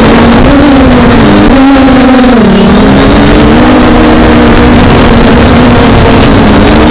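MJX Bugs 5W quadcopter's brushless motors and propellers humming steadily, the pitch wavering up and down as the motors correct against gusty wind, with a dip near the middle. Heavy wind rumble buffets the microphone throughout.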